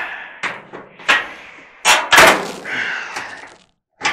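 Sheet-metal clunks and knocks from a White Westinghouse clothes dryer's cabinet and drum being handled: several sharp hits, the loudest about two seconds in.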